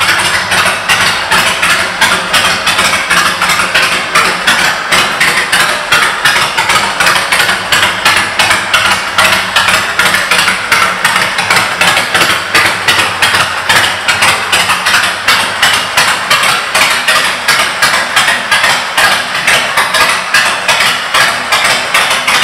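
Honda VTX 1300R's V-twin engine idling through aftermarket Vance & Hines exhaust pipes, a loud, steady pulsing beat.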